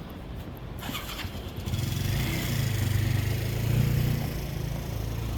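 A motor vehicle passing close on a city street. Its engine rumble and tyre noise swell in about two seconds in, then ease off a little.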